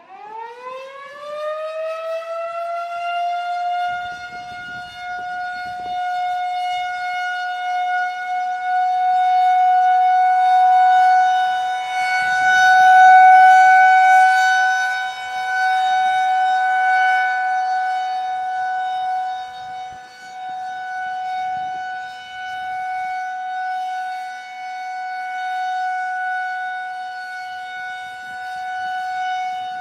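Federal Signal 2001-130 electromechanical warning siren winding up from a low pitch to its steady tone within the first couple of seconds, then holding one steady note whose loudness swells and fades in slow waves as the rotating siren head sweeps past. It is sounding a steady alert signal during a test.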